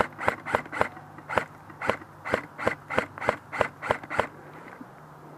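Airsoft gun firing a quick string of single shots, about three a second, that stops about four seconds in.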